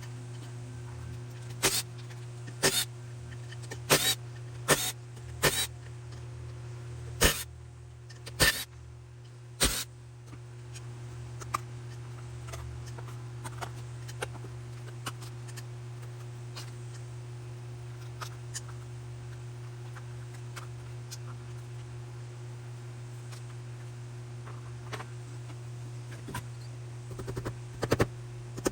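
Steady low hum with scattered sharp clicks and knocks: about eight in the first ten seconds, faint ticks after that, then a cluster of knocks near the end.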